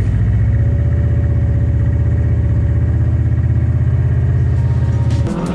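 Diesel engine of a 1998 M1078 LMTV truck, a Caterpillar 3116, idling with a steady, fast low pulse. It cuts off abruptly shortly before the end.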